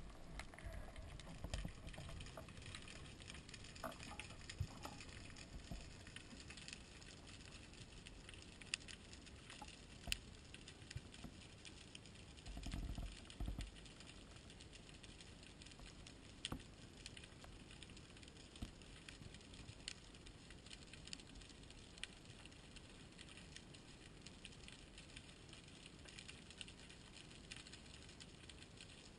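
Underwater ambience picked up through a camera housing: a faint steady hiss with scattered sharp clicks and crackles, and a short low rumble about thirteen seconds in.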